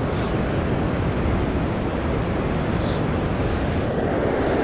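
Steady rush of surf breaking on a sandy beach, with wind buffeting the microphone.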